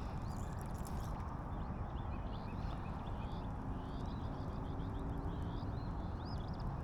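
Small birds chirping, many short rising and falling notes in quick succession, thickest in the middle, over a steady low rush of outdoor noise.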